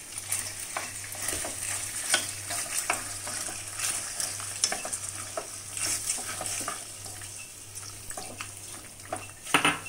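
Wooden spatula stirring macaroni through a pan, scraping and knocking against it in short irregular strokes, while the sauce sizzles over the gas flame as white sauce is worked into the tomato-sauced pasta.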